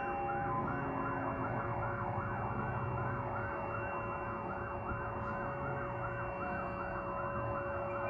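Several sirens sounding together: a fast wailing siren cycling about three times a second over a steady siren tone, with a two-tone high-low siren near the start and a low steady tone underneath. This is the Godzina "W" siren salute that marks the anniversary of the Warsaw Uprising.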